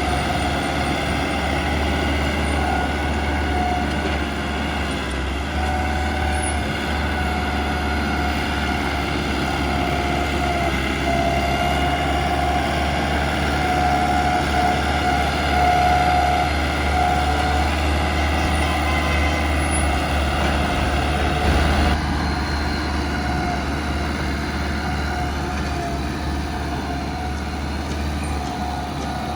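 Bulldozer's heavy diesel engine running steadily under load, with a high whine that wavers in pitch over the engine.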